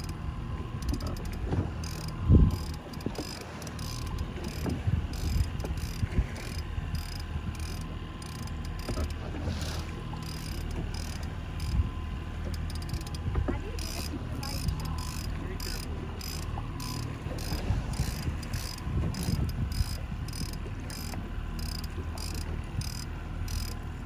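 Trolling reel being cranked in against a hooked salmon, its mechanism clicking rhythmically about two to three times a second, over the steady low drone of the boat's engine. A single louder knock about two seconds in.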